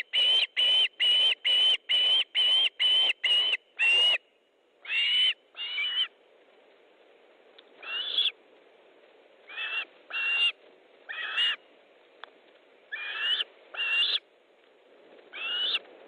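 Osprey giving a rapid series of short, high whistled calls, about three a second, which after about four seconds slows to single calls every second or two.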